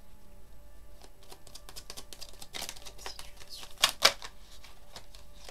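Tarot cards handled and shuffled by hand: a run of light card clicks and flicks, thickening a little over two seconds in, with two sharp snaps about four seconds in as a card comes off the deck.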